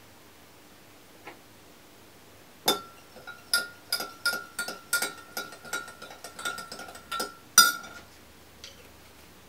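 A metal spoon stirring liquid in a small glass measuring jug, clinking quickly against the glass, about four or five clinks a second, with the glass ringing. It starts a few seconds in, runs for about five seconds and ends with one louder clink.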